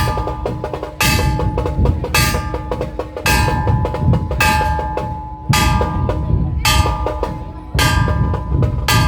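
A Dhol Tasha ensemble playing: dhol drums beat continuously under a heavy stroke with a ringing metallic crash about once a second.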